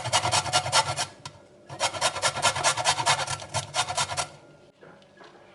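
A dried avocado seed being grated in quick, even rasping strokes, several a second, in two runs with a short pause about a second in; the grating stops about four seconds in.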